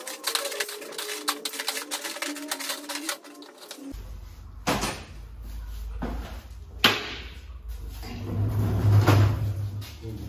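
Metal bolts and small parts clinking as hands sort through them on a steel tray, a quick run of light clicks. After that come two loud single clanks and a low rumble that swells near the end.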